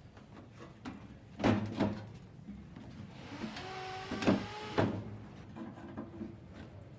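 Several sharp knocks of objects being handled, two close together and two more a few seconds later. Between the later knocks there is a brief whirring hiss with a steady pitch, like a small motor or tool.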